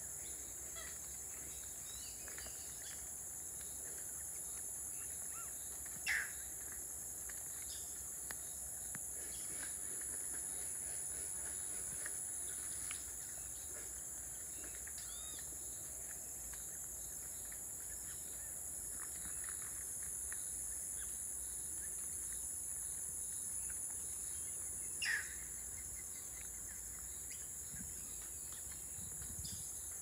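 Steady high-pitched insect chorus with scattered faint bird chirps, and two short, louder bird calls, one about six seconds in and one near the end.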